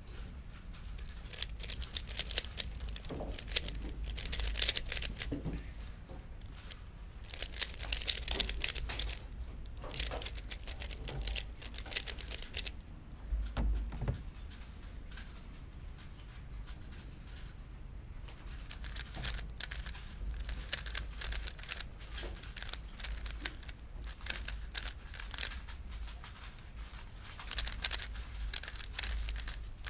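3x3 speedcube being turned by hand during a blindfolded solve: a dense run of quick plastic clicks and rattles in spurts with brief pauses. About fourteen seconds in, a heavier knock as a cube is handled at the table.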